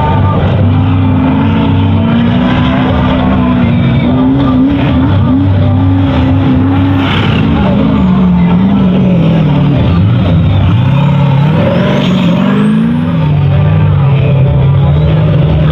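Turbocharged 383 stroker V8 in a rock-crawling buggy running hard, its pitch climbing and falling as the throttle is worked. It drops low about eight to ten seconds in, then climbs sharply again.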